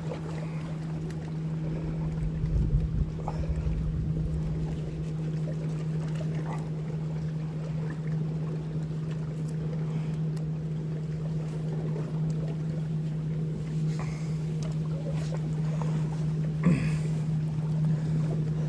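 Steady low mechanical hum from the boat, with wind rumbling on the microphone about two to three seconds in.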